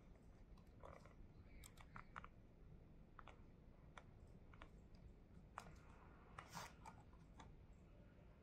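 Faint, scattered clicks and taps of fingers on a laptop keyboard and touchpad, with a short cluster of clicks about six seconds in.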